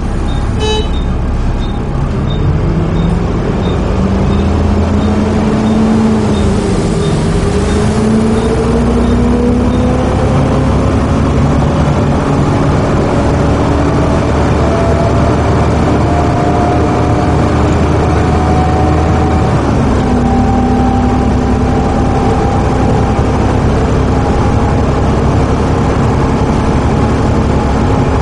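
Volvo B7TL double-decker bus's six-cylinder diesel engine and drivetrain heard from the upper deck under way, whining steadily higher in pitch as it accelerates. The pitch dips about seven seconds in and again near twenty seconds, as at automatic gear changes. A faint regular ticking runs through the first ten seconds or so.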